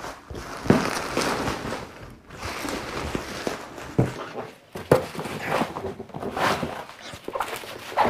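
Thick plastic bubble wrap rustling and crinkling as it is pulled by hand off a cardboard box, with a few knocks from the box being handled.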